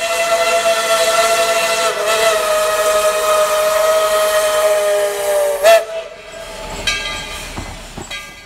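Alexander Railroad #12's diesel locomotive air horn sounding one long chord that sags slightly in pitch, ending in a short, louder blip about five and a half seconds in. Fainter horn notes and rumble follow.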